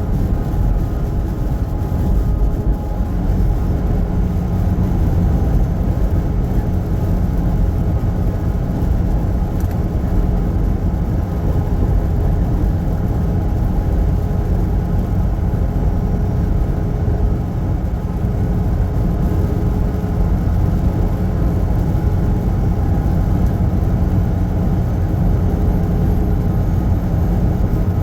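Semi truck's engine and road noise, a steady low rumble with a faint hum that does not change.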